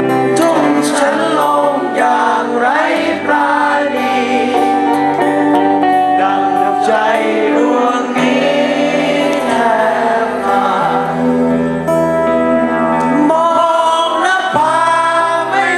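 Live band music: a guitar-backed song with a singing voice carrying the melody over steady low notes.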